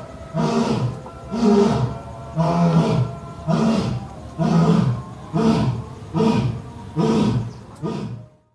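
A large animal giving a series of short roaring calls, about one a second, each rising and falling in pitch; the sound cuts off suddenly near the end.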